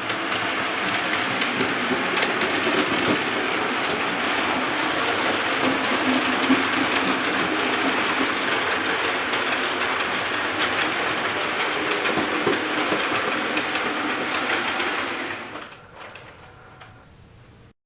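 Model railway train running along the track, a steady rumble with clicks from the wheels, dying away about fifteen seconds in.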